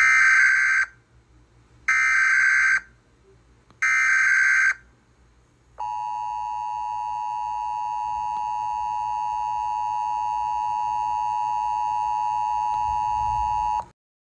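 Emergency Alert System alert signal: three short screechy bursts of SAME digital header data, each under a second and about two seconds apart, then a steady attention tone lasting about eight seconds that cuts off suddenly. It announces a National Weather Service special marine warning.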